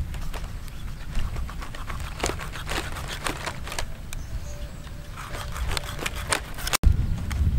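A knife cutting into a stingray's flesh and hands working in the cut, on dry palm fronds: runs of quick wet clicks and crackles over a steady low rumble. There is a brief break in the sound near the end.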